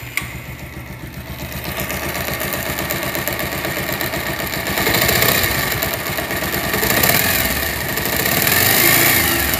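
Bajaj Pulsar motorcycle engine running and revved up three times. When the revs are held it makes a rough "tak tak tak" knocking noise, which the mechanic links to a balancer that has been mis-adjusted.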